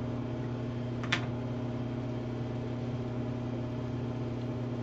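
Bathroom exhaust fan running with a loud, steady hum. A single short click about a second in.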